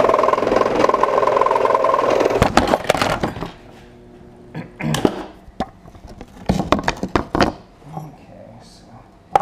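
Drill press running with a solid carbide bit cutting into hardened steel, a steady machine sound with a held whine. It breaks off about two and a half seconds in, followed by a loud clatter and then scattered knocks of metal being handled.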